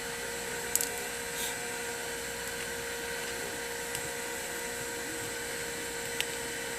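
Steady electric machine hum, like a small fan or motor running, with a few small clicks scattered through it, the sharpest about three-quarters of a second in.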